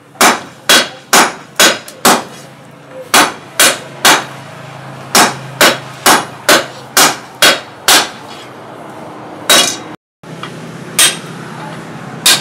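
Sledgehammer blows on a red-hot steel blade over a small steel anvil during hand forging: sharp ringing clangs, about two a second in runs of three to seven, with short pauses between runs. A steady low hum runs underneath.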